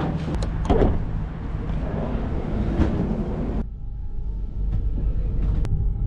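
Railway station platform noise with a few sharp knocks. After an abrupt cut a little past halfway, a Copenhagen S-train is heard from inside the carriage as it runs: a steady low rumble with a faint, steady whine above it.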